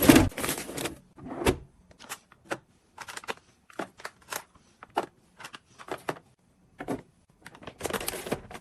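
Household handling sounds: an irregular run of short knocks and clatters with some rustling, as things are set down and moved about. The knocks are densest at the start and in a cluster near the end.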